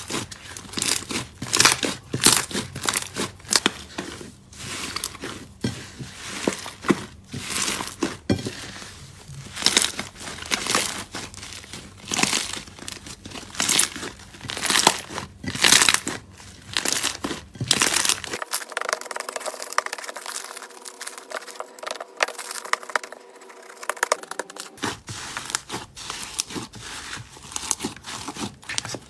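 Hands squeezing, poking and stretching slime: a dense, irregular run of sticky crackling and popping clicks.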